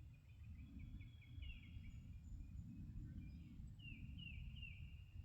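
A bird chirping, runs of quick falling notes repeated several times, over a faint low rumble of outdoor background noise.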